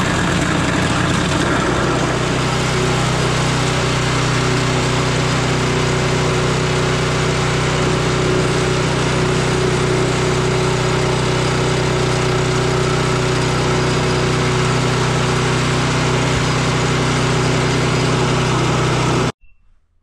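John Deere TRS 24 snowblower's small four-stroke engine running steadily, close by and loud; the sound stops abruptly about a second before the end.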